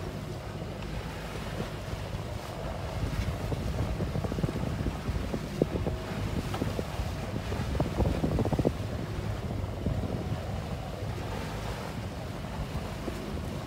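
Wind buffeting the microphone and water rushing and slapping against the hull of a powerboat running through chop, with a steady low engine hum underneath. A run of sharper slaps comes around the middle.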